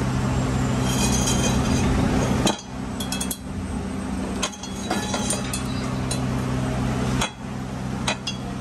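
Hex key clinking against the socket-head bolts of a motorcycle wheel's sprocket carrier as they are tightened: several sharp metallic clinks, spread irregularly, over a steady low hum.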